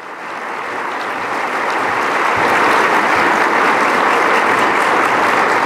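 Large audience applauding, building up over the first two seconds and then steady.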